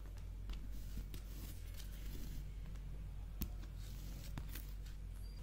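Faint rustling and scraping of jute thread being pulled through and wrapped around a dreamcatcher hoop, with a few light ticks, over a low steady hum.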